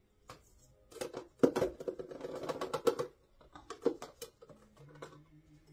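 Metal measuring cup scooping and scraping moist brown sugar out of a plastic container and tipping it into a mixer bowl: a few taps, then a run of rapid gritty scraping, then a few more taps.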